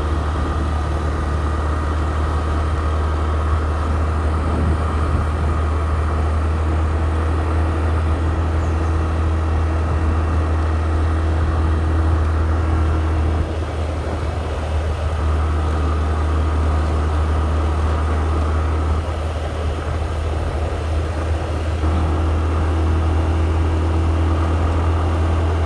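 Motor vehicle on the move: a steady low engine and road rumble, with a faint engine tone that comes and goes.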